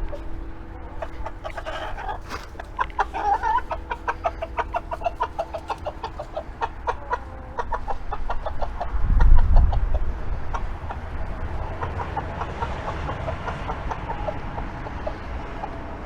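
A flock of chickens clucking busily, many short clucks in quick succession that thin out in the second half. A low rumble about nine seconds in.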